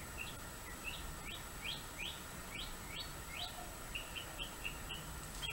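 A bird singing, faint: a run of quick rising chirps, about two a second, then a faster string of short even notes near the end.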